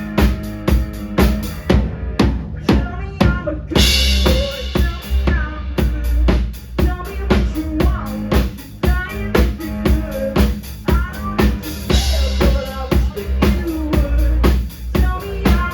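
Live band playing an instrumental passage: a loud, steady drum-kit beat of kick and snare over held low notes, with cymbal crashes about four seconds in and again near twelve seconds.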